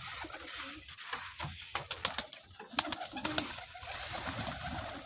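Domestic pigeons cooing softly, with a few sharp clicks about halfway through.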